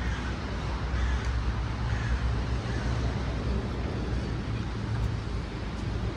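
Steady low rumble of street traffic, with a vehicle engine running nearby.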